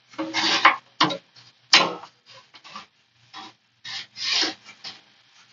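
Metal parts of a Porter Cable 9-inch benchtop bandsaw being handled as it is closed back up after a blade change: a run of short scrapes and rubs, with a sharper clack a little under two seconds in.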